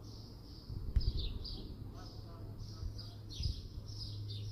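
Sparrows chirping continuously, a rapid string of short, high, downward-slurred chirps. Under them runs a steady low hum, with a low thump about a second in and another later on.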